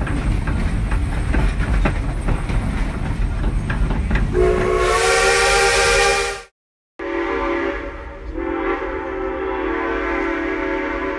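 Steam locomotive running, heard from its cab: low rumble with rapid clanking, then about four seconds in the steam whistle blows a chord of several notes at once for about two seconds. After a sudden cut, the whistle sounds again in a long blast.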